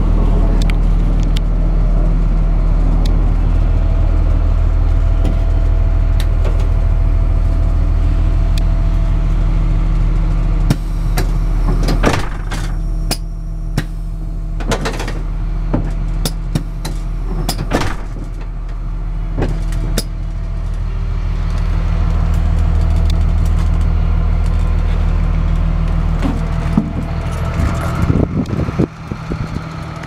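School bus diesel engine idling steadily, with a few sharp knocks and clunks around the middle and again near the end.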